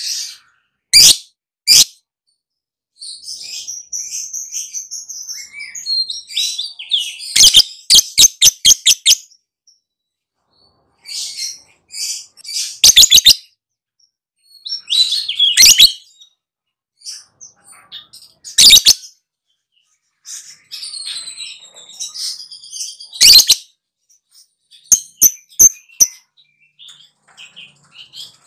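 Lovebird chattering song (ngekek): shrill high chirps and quick runs of loud, sharp clicking notes, in bursts a few seconds apart with short silent gaps.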